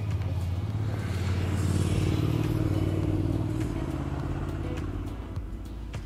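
A motor vehicle's engine passing by, growing louder to a peak about two seconds in and then fading away.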